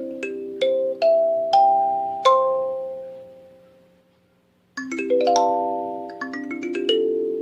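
LingTing K17Y-EQ kalimba played: single plucked metal-tine notes ring on and die away to a short gap about four seconds in, then a quick run of notes follows.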